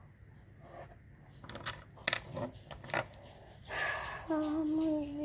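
A few light clicks and taps, then a child's voice holding a long sung or hummed note in the last second or so.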